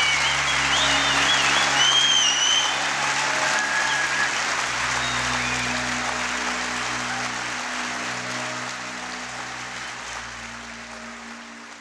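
Audience applauding, with some high whistling in the first few seconds, over background music with held chords; the whole fades out steadily.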